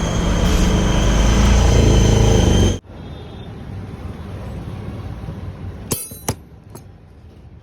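A motor vehicle engine runs with a steady high whine over it, then stops abruptly about three seconds in. A quieter background follows, with two sharp clicks near the end.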